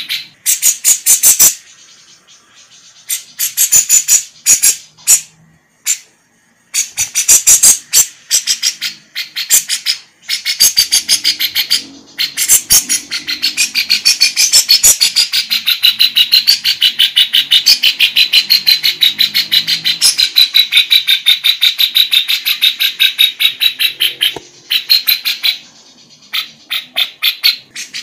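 Female lovebird singing a long, fast chattering song of sharp high chirps, broken by short pauses near the start, then running unbroken for over ten seconds in the middle. The song is laced with phrases copied from kapas tembak and cucak jenggot songs.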